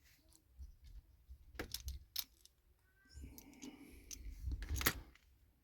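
A few light clicks and taps with faint rustling, small plastic and metal parts of a toy train being handled, with the sharpest click near the end.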